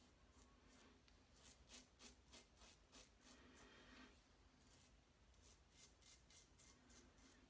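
Double-edge safety razor (Parker 69CR with a Voskhod blade) scraping through lathered stubble on the neck, an against-the-grain pass. It is a faint run of short, quick strokes with one longer scrape in the middle.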